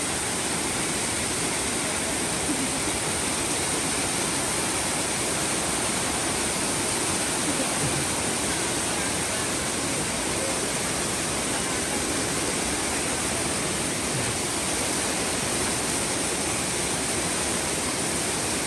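River water rushing steadily over a shallow rapid.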